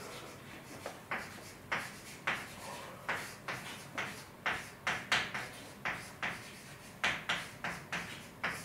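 An irregular series of short, sharp taps, about two a second, each with a brief ringing decay.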